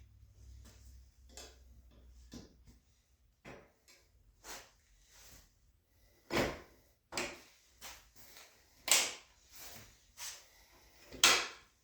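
Scattered clicks and knocks of hard parts being handled and fitted while a sissy bar goes onto a motorcycle, with a few sharper, louder clacks in the second half.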